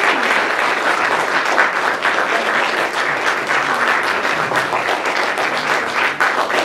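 Audience applauding: dense, steady clapping from many hands as a big round of applause.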